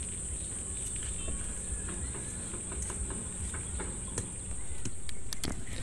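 A steady, high-pitched insect chorus over a low outdoor rumble, with a few faint clicks.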